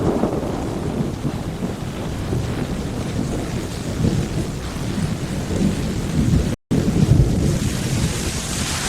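Steady, dense storm noise of heavy rain with a low rumble. It cuts out for an instant about two-thirds of the way through, then carries on.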